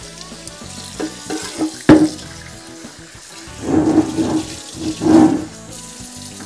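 Kitchen faucet running into a stainless steel sink while chicken pieces are rinsed in a cast iron Dutch oven. A sharp knock about two seconds in, then water sloshing out of the pot twice as it is tipped to drain.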